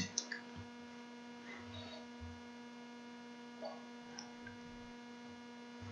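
Quiet, steady electrical hum with a few faint soft knocks.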